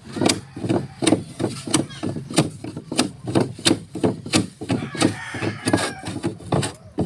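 A tool striking wood over and over, quick sharp knocks at about three to four a second, as in work on the wooden boat's hull.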